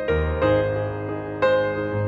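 Background music: a solo piano playing a slow, gentle melody.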